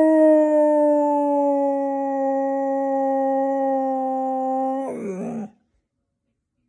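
A dog howling: one long, steady howl held for about five seconds, sinking slightly in pitch, then wavering as it breaks off.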